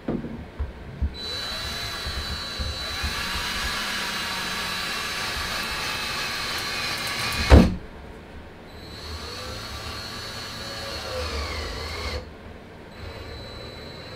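Cordless drill running in long bursts with its motor speed wavering, after a few knocks at the start. A loud knock about halfway cuts off the first run, then the drill runs again more quietly.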